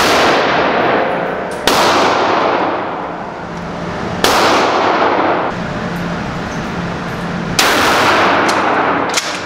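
UTS-15 pump-action 12-gauge bullpup shotgun firing slugs: four shots spaced about two to three seconds apart, each ringing out with a long echo off the walls of an indoor range.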